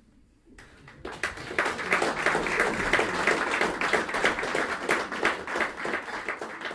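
Audience applauding. The clapping starts out of near quiet about half a second to a second in, quickly builds to a dense, steady patter, and eases off near the end.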